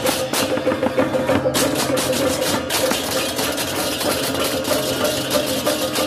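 Balinese baleganjur gamelan music played in procession: rapid, steady cymbal clashing over drums, with a steady tone underneath.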